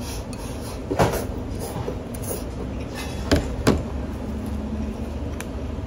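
Bowls set down on a serving tray: a clack about a second in, then two clacks close together midway, over a steady low rumble.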